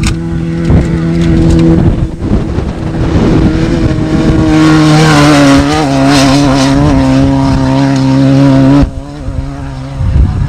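Off-road desert race vehicle's engine running hard at high, steady revs, loud and close. Its pitch drops about halfway through, and it cuts off suddenly near the end, leaving a wind-like rumble.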